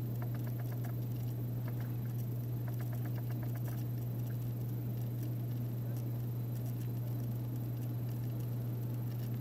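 A steady low hum throughout, with short runs of rapid, evenly spaced ticking or chirping in the first few seconds.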